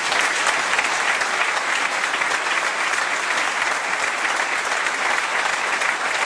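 Audience applauding steadily in a hall, a dense sustained clapping from a large seated crowd.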